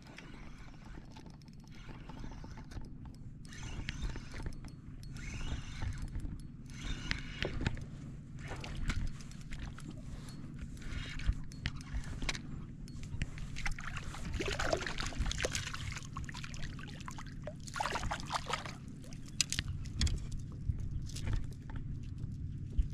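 Small boat on open water: a steady low hum with irregular water splashing and lapping at the hull.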